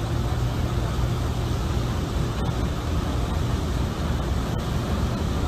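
A steady low engine rumble under a loud, even rushing noise.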